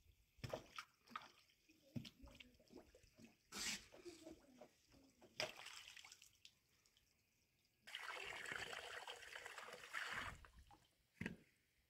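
Faint trickling of hose water over wet ground, with scattered scrapes and knocks of a flat stone being worked in the mud. About eight seconds in, a steady splashing of water starts suddenly and stops after about two seconds.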